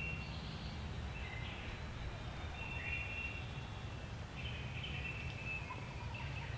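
Small birds singing: short high whistled phrases every second or so, over a steady low background rumble.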